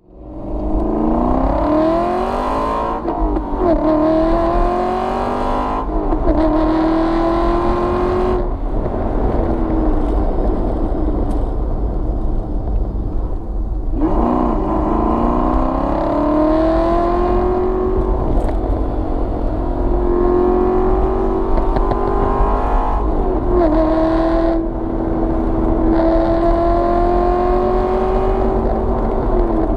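Aston Martin V8 Vantage's V8 engine and exhaust pulling hard, rising in pitch through the gears with a sharp drop at each quick upshift early on. It then holds a low gear, a gear or two lower than needed, with long slow climbs in pitch and a few brief dips from gear changes.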